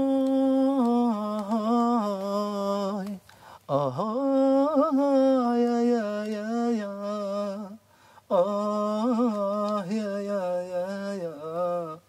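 A man's solo voice singing long, drawn-out, ornamented phrases into a studio microphone. There are three phrases, with a short breath before the second and the third.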